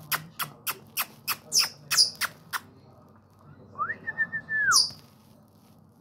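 Caged pet parrot: a quick run of about ten sharp taps, roughly three a second, then a single whistle that rises, wavers on a high note and falls, ending in a brief high squeak.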